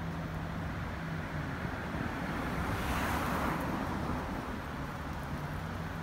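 Street traffic noise: a vehicle passes, its tyre and engine noise swelling to a peak about three seconds in and then fading, over a steady low hum.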